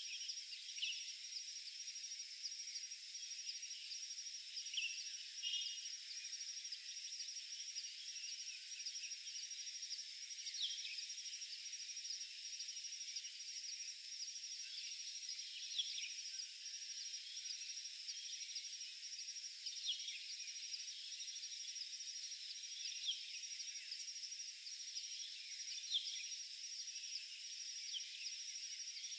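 Insects trilling in a steady high-pitched drone, with short high chirps every few seconds.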